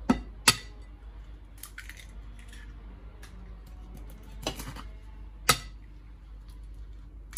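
Eggs being cracked: a series of sharp taps and clinks of shell against kitchenware, with two loud knocks in the first half second, lighter taps around two seconds in, and two more loud knocks about four and a half and five and a half seconds in.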